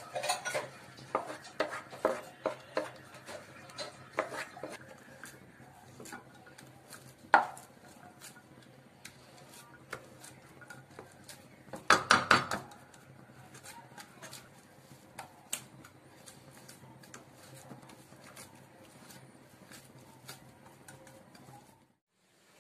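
A wooden spatula scrapes and knocks against a nonstick frying pan as thick khoya (mawa) is stirred and cooked down into a soft dough that pulls away from the pan. Quick taps come in the first few seconds, a sharp knock about seven seconds in, and a cluster of louder knocks around twelve seconds, followed by lighter scraping ticks.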